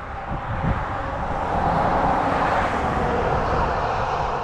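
A car passing on the road, its tyre and engine noise swelling to a peak about two seconds in and then fading.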